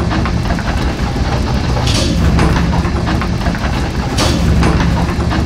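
Heavy truck engine running steadily, a sound effect for a dump truck tipping its load, with two brief rushes of noise about two and four seconds in.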